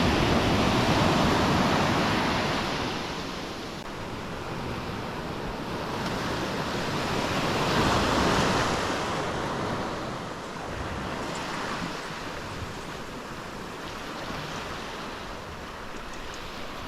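Ocean surf breaking on a beach: a wash of wave noise that swells loudest at the start and again about eight seconds in, then settles lower.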